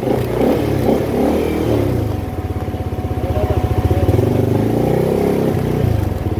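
CFMOTO 300SR motorcycle's single-cylinder engine running under way, its pitch shifting with the throttle for the first couple of seconds, then running steadier.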